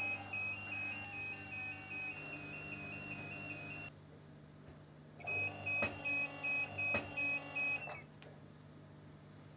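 Electronic beeper sounding a two-tone warble, stepping between two high pitches about three times a second, in two runs of about four and three seconds with a short gap, from the butt-fusion welding machine. A steady low hum runs underneath.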